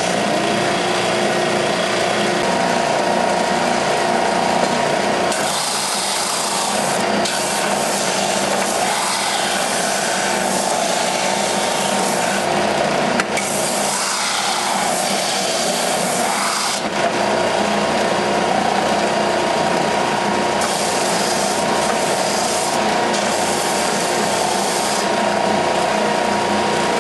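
Ridgid oscillating belt and spindle sander running steadily with a vacuum drawing through its dust port, giving a constant motor whine. A piece of wood is pressed against the moving sanding belt in about four passes, each adding a rasping hiss over the whine.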